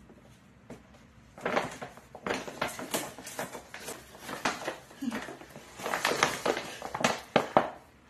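Paper gift bag rustling and crinkling on and off as a small dog is fitted into it and handled, starting about a second and a half in.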